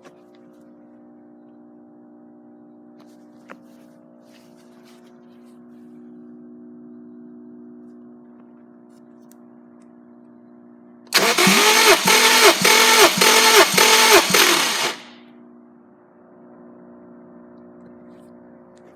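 Subaru EZ30R 3.0 L flat-six engine being turned over by its starter for about four seconds, in a pulsing rhythm of two to three beats a second. It stops abruptly without catching and running.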